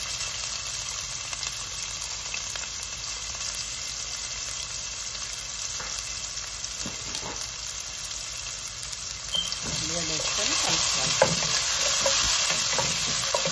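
Chopped onions sizzling in hot oil in a nonstick pot. About ten seconds in, a wooden spatula starts stirring them with scraping strokes, and the sizzle grows louder.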